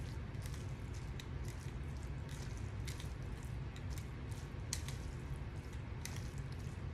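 Silicone tongs tossing spaghetti squash strands in a thick cashew sauce in a ceramic bowl: soft, wet squishing with scattered light clicks and taps, over a steady low hum.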